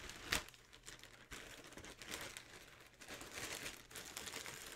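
Clear plastic wrapping crinkling as it is handled, with a sharp crackle about a third of a second in and irregular bursts of crinkling after.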